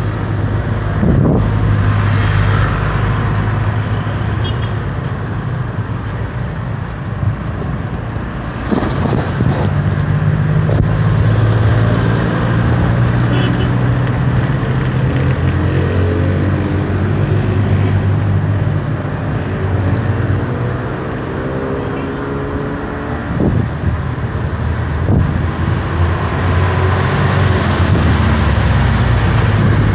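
Road traffic: motor vehicle engines running steadily, with one engine's pitch climbing in the middle as a vehicle accelerates past.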